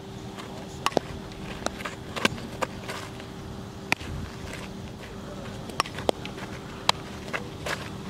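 Softball fielding practice: about a dozen irregular sharp knocks and claps of the ball, glove and bat over a steady low hum.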